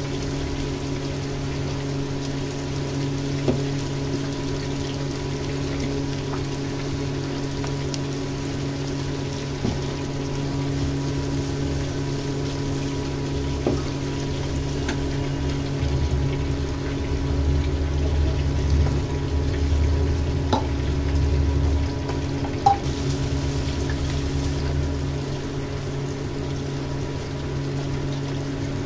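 Onion-tomato masala sizzling in a steel kadai over a steady motor hum, with the spatula scraping and tapping the pan now and then. A louder, rumbling stretch in the middle as water goes into the hot masala and it starts to bubble into gravy.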